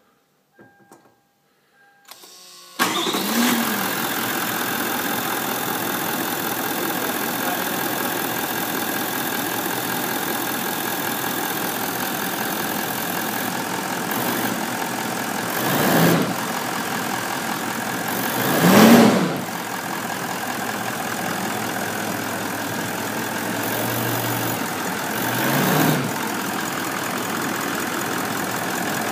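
A few faint clicks, then a brief crank and the 2013 Toyota Land Cruiser 200's 4.5-litre twin-turbo V8 diesel (D-4D) fires about three seconds in, flares briefly and settles to a steady idle. In the second half it is revved briefly three times, the middle rev the strongest, each time dropping straight back to idle.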